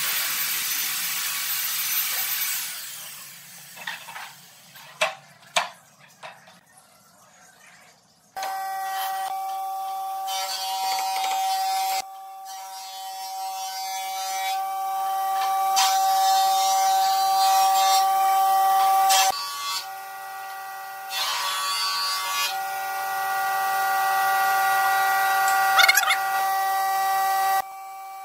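A hissing rush for the first couple of seconds, then a few sharp knocks, then a steady motor whine that runs on with several abrupt breaks.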